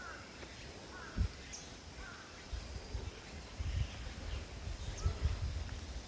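A few short bird calls over irregular low thumps.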